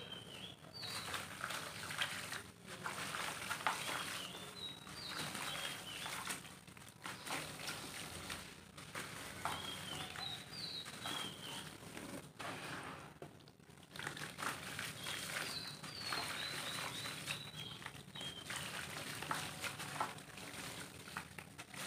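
Hand-crumbling of roasted dirt blocks: dense, irregular crackling as the dry lumps break apart and their crumbs and grains fall into a basin of water. Short high bird chirps come in scattered clusters behind it.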